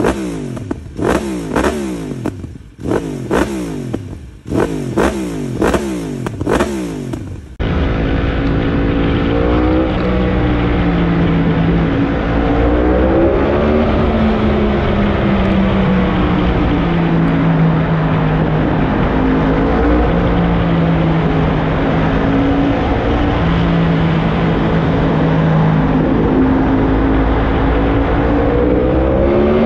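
Yamaha R1M's crossplane inline-four through a decat Black Widow carbon slip-on exhaust, revved at standstill in a series of sharp throttle blips. After about eight seconds it changes to the bike being ridden in a road tunnel, the engine running steadily with slow rises and falls in pitch as it accelerates and shifts.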